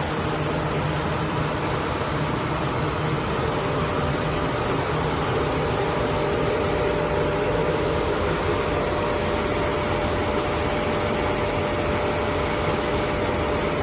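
LDPE ABA film blowing machine with a rotating die head running: a steady, noisy mechanical hum with a constant whine through it.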